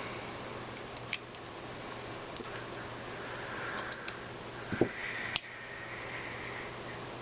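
Small metal ratchet parts and hand tools clicking and tapping during reassembly of an SK half-inch ratchet, with a dull knock and then one sharp metallic clink that rings briefly about five seconds in.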